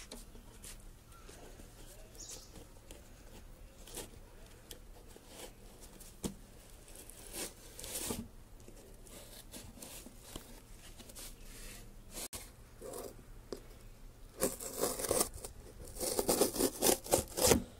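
Scissors slitting the packing tape along a cardboard parcel, with the box shifting under the hands. Near the end comes a run of quick, louder cuts and rips.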